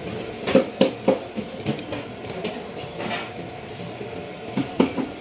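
Ice cubes knocking and clattering against each other and the groupers as the fish are shifted in their ice. There is a cluster of sharp knocks about half a second to a second in and two more near the end, over a steady background hum.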